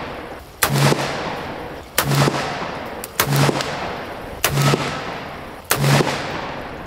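Black-powder Colt Cattleman revolver with a 5½-inch barrel, loaded with 24 grains of Swiss 3F powder, fired five times in quick succession, about one shot every 1.3 seconds. Each shot is a sharp bang that echoes away before the next.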